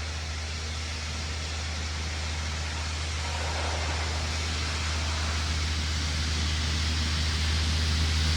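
Steady low hum of an idling heavy vehicle engine amid city street noise, the noise slowly growing louder toward the end.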